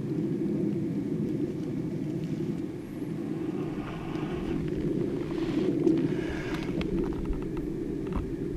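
Breath blown steadily into a smouldering tinder bundle to bring an ember up to flame: a continuous low rushing sound, with a few faint crackles near the end.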